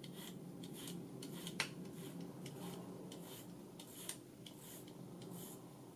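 Faint irregular scraping and small clicks from the tape-drive motor and gear train of a vertical-tape radar altimeter indicator as it is turned by hand, with one sharper click about a second and a half in. A steady low hum runs underneath.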